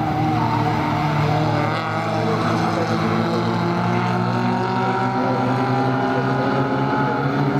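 Several stock-car engines running together as a pack circles the oval track, their pitches rising and falling slightly as they go.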